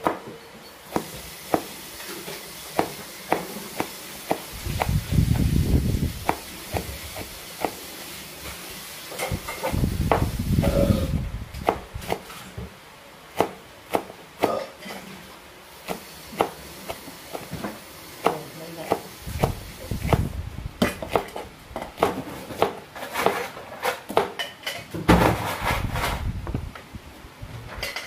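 A kitchen knife slicing green chillies on a wooden chopping board: sharp taps of the blade on the board at an uneven pace. A low rumble swells and fades several times behind them.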